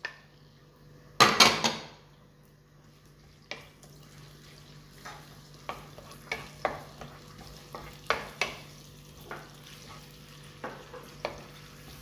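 Minced garlic going into hot oil with chopped onion in a nonstick pan: a brief loud sizzle about a second in. Then a wooden spoon stirring and scraping the pan, with knocks every second or so over a light steady sizzle.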